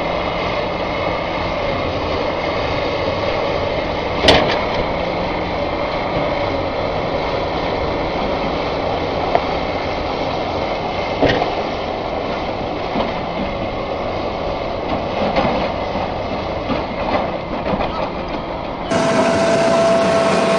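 Diesel engines of excavators running steadily, with a sharp clank about four seconds in and a fainter knock later. Near the end the sound changes to another recording carrying a steady tone.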